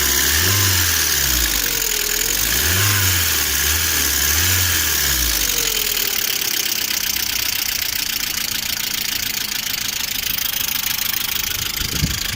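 Lada Priora's 21126 1.6-litre 16-valve four-cylinder engine blipped up and down about four times, then idling steadily, with the knock of its hydraulic lifters, which persists hot and cold despite oil changes and a new oil pickup.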